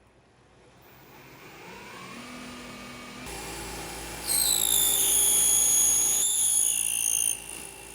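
Milling machine spinning up, its motor pitch rising, then an end mill cutting a slot with a loud, steady high-pitched whine from about four seconds in that stops shortly before the end.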